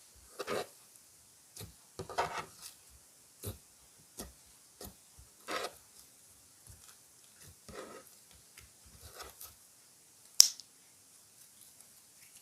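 Hands working clear slime that has makeup mixed in, giving irregular short squelchy, crackly sounds about once a second, with one sharp click or pop about ten seconds in that is the loudest sound.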